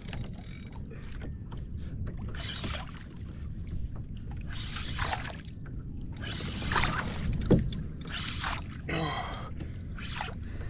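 Wind buffeting the microphone over water sloshing around a kayak, broken by several short rushing bursts of noise, the loudest about seven and a half seconds in.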